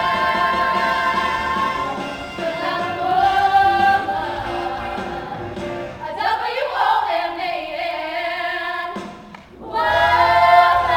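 Female voices singing together as a group, holding long notes; the music drops away briefly about nine seconds in, then comes back.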